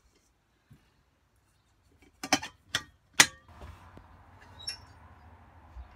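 A metal stovetop kettle set down on the worktop beside the hob: three sharp clanks close together, then a single ringing clink of metal a little later.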